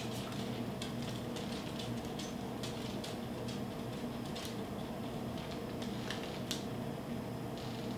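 A steady low hum, with scattered faint, light clicks and taps from kitchen utensils being handled while cream is brushed onto scone dough.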